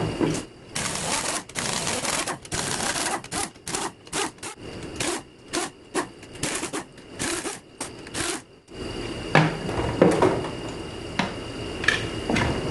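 A pneumatic hand tool such as an air ratchet run in a string of short trigger bursts of differing length, followed near the end by a few knocks of metal parts being handled.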